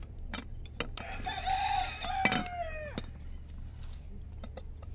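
A rooster crowing once: one call of about two seconds that holds its pitch and then falls away at the end. Light clinks of spoons and a metal pot lid come before and during it.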